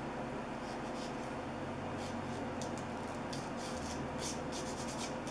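Nail buffer rubbed back and forth across a sculptured acrylic nail in short, scratchy strokes, about two a second, smoothing out the last file scratches.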